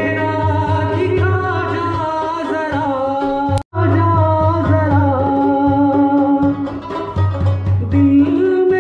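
Live folk music: a man singing long, wavering held notes into a microphone, with a plucked long-necked lute (rubab) and a hand drum. The sound breaks off for an instant about four seconds in.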